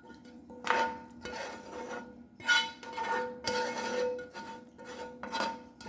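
A metal utensil scraping and rubbing against a pan in a few irregular strokes, working sauce over baked crab and shrimp. A faint steady hum runs underneath.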